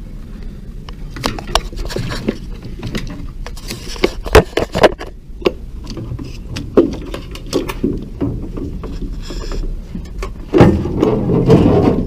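Plastic circuit-board housing of a front-loading washer being handled and worked into place: irregular plastic clicks, knocks and scrapes against the machine's frame, the sharpest about four to five seconds in. From about ten and a half seconds in the handling noise turns louder and denser.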